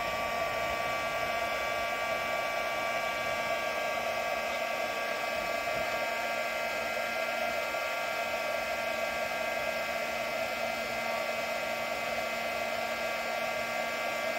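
Handheld electric heat gun running steadily: an even rush of blown air with a constant whine from its fan motor.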